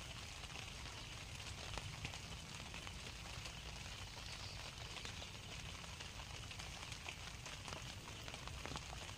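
Light rain pattering: a faint, steady hiss with scattered small ticks.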